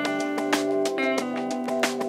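Background music: plucked, guitar-like instrumental with a steady beat.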